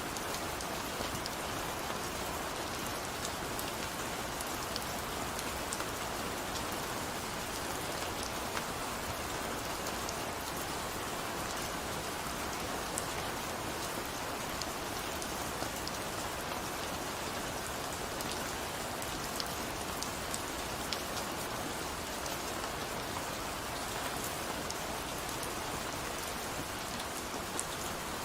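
Steady rain falling, an even hiss with many individual drops ticking on a hard surface.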